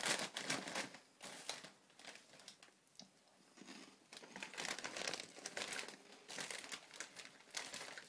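Plastic crisp packet being pulled open and handled, crinkling in repeated bursts, loudest right at the start.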